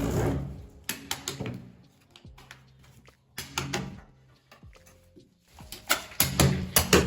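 Background music fades out, leaving a quieter stretch with a few scattered clicks and knocks, then the music comes back in about six seconds in.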